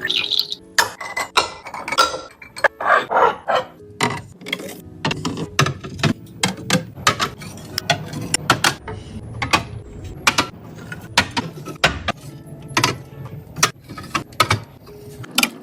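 Containers and food items being handled and set down: a rapid, irregular run of sharp clicks and knocks.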